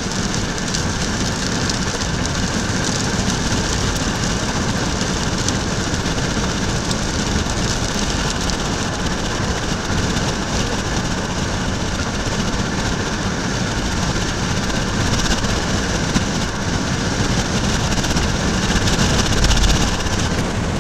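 Steady rushing noise of storm wind and rain, with a vehicle's engine running beneath it, getting a little louder near the end.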